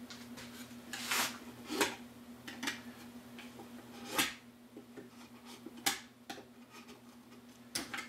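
Occasional knocks and light scrapes of hand tools and wood being handled on a workbench, about six separate sounds spread out over a steady low hum.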